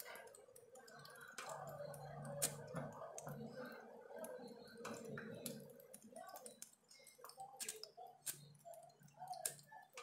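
Thin stream of tap water splashing onto a bathing cockatiel's feathers and the wet bench, with many irregular light clicks of splashing drops.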